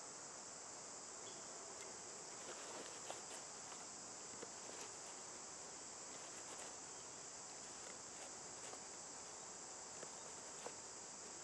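Steady high-pitched chorus of insects in summer woodland, with faint scattered clicks and scrapes of a knife working a green stick.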